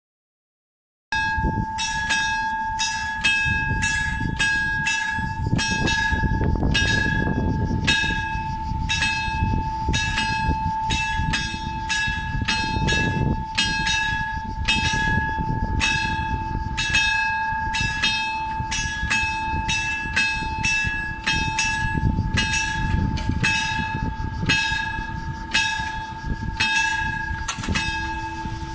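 Level-crossing warning bell ringing in quick, evenly repeated strikes, about two a second, over a steady ringing tone, with a low rumble underneath. It starts about a second in. The bell signals that the barriers are down for an approaching train.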